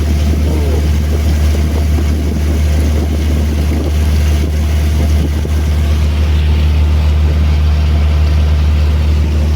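Boat engine running steadily under way, a loud, deep, even drone.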